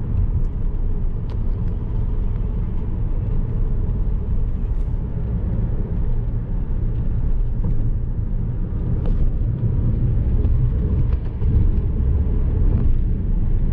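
Inside the cabin of a Skoda Superb with a petrol engine and 7-speed DSG, cruising at highway speed in sixth gear: a steady low rumble of engine and tyre noise. The car runs with no jerking or noise from the transmission.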